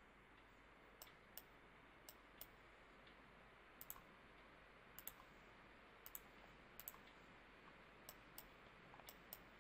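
Faint computer mouse button clicks, a single click or a quick pair roughly every second, over low steady hiss.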